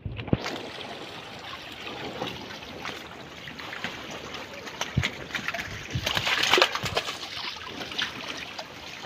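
Seawater splashing and trickling as a net cage's mesh is lifted and moved by hand in the water, with many small scattered clicks and a louder splashy stretch about six seconds in.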